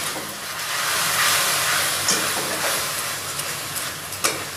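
Onion masala sizzling and hissing in hot oil in a metal kadhai as freshly added water mixed with chilli and turmeric cooks off, while a metal spatula stirs and scrapes the pan. A sharp scrape of the spatula stands out about four seconds in.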